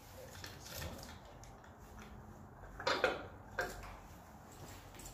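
A few light metallic clinks and knocks as strap and hook hardware is handled by hand at the base of the tent, the loudest about three seconds in.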